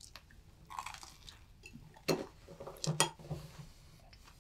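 A corn dog on its stick set down on a plate: a sharp clink about two seconds in, then a second clink with a little clatter about a second later.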